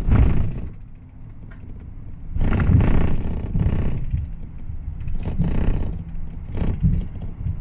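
Minibus driving, its engine and tyre rumble heard from inside the cabin. It dips quieter about a second in, then swells louder with rushing surges from about two and a half seconds on.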